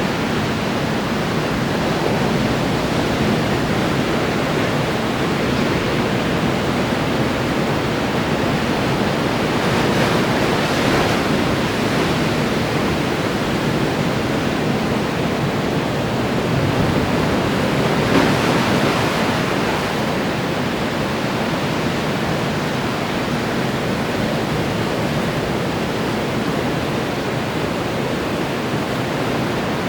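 Ocean surf washing in steadily onto the shore, with a wave breaking a little louder about ten seconds in and again past the middle.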